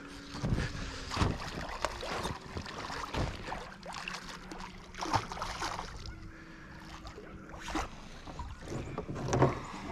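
Hooked Murray cod splashing at the surface beside a small aluminium boat while it is played in, with repeated knocks and rattles of gear against the hull.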